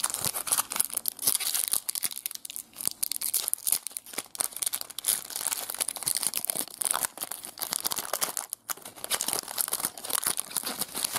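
Foil-lined wrapper of a Panini trading card pack being torn open and crinkled by hand: a continuous run of sharp crackles and rustles.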